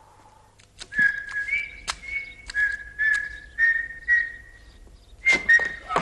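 A man whistling a simple tune of short held notes that hop between two pitches, with a few sharp knocks and clicks in between.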